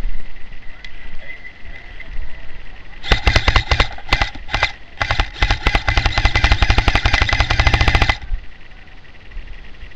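Airsoft gun firing on full auto: a rapid stream of shots in several bursts, starting about three seconds in with short bursts and ending in a long burst of about three seconds.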